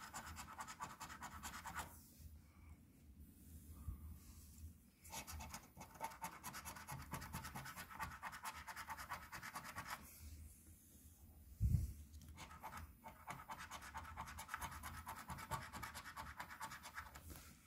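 A coin scratching the coating off a paper scratch-off lottery ticket: quick, rapid scraping strokes in three runs with two short pauses. A single soft thump falls in the second pause.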